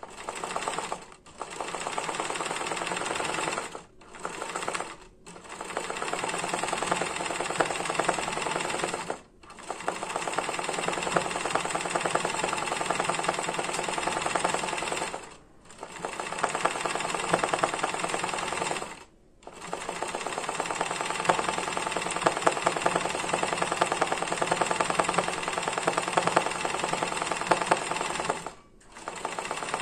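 Janome 813 sewing machine running at speed, stitching free-motion embroidery in a hoop with a fast even rattle of the needle, stopping briefly every few seconds and starting again.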